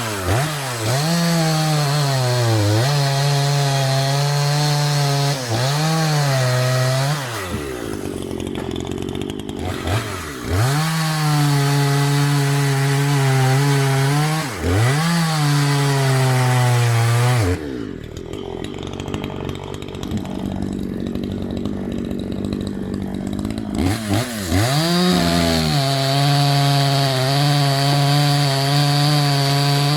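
Two-stroke Maruyama MCV5100S chainsaw working through wood: it revs up, then its pitch sags and holds lower through each cut before rising again as it comes free. This happens several times, with a quieter stretch at lower revs from about 18 to 24 seconds before it revs back into another cut.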